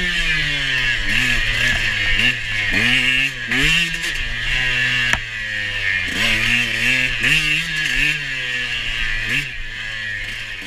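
KTM 125 two-stroke dirt bike engine revving up and dropping back again and again as the throttle is worked on the trail. A single sharp click comes about five seconds in.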